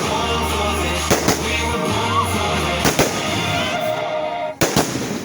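Fireworks bangs going off every second or so over loud music with a heavy bass line. The music cuts out about four seconds in, and two more bangs follow close together.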